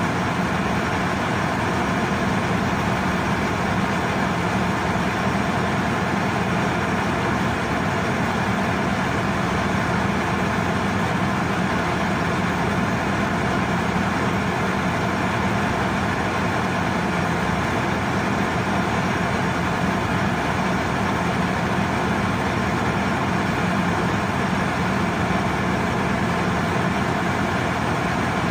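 Marine diesel engines running in a ship's engine room: a loud, steady drone with a strong low hum that does not change.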